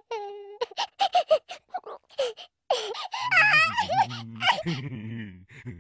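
A cartoon larva's wordless vocal sounds: a quick run of short giggling, cooing syllables, then from about halfway a longer wavering voice over a low buzzing drone.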